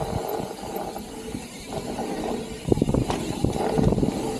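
Mountain bike riding down a dirt trail: steady tyre and rolling noise with the bike rattling over bumps, and a cluster of sharper knocks about three to four seconds in.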